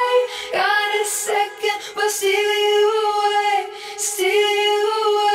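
Background music: a high voice singing long, held notes with a slight waver, with short breaks between phrases.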